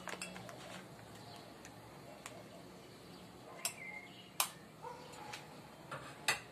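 A few faint knife taps and clinks on an enamel bowl as butter is cut and scraped into it, some with a short ring from the bowl, amid soft handling of the foil wrapper.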